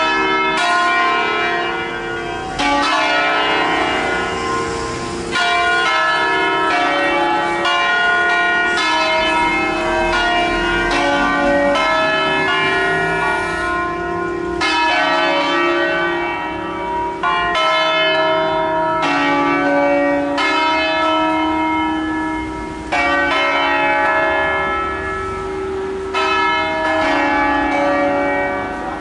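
Six-bell ring of wheel-hung church bells, cast by Crespi of Crema in 1885 and tuned to D-flat, ringing a funeral concerto. The bells are struck one after another every second or two, and each note rings on under the next.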